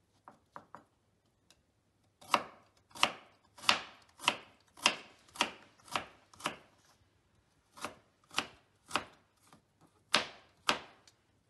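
Kitchen knife slicing through raw sweet potato and striking a wooden cutting board. After a few light taps, it settles into about two sharp chops a second, in runs broken by brief pauses.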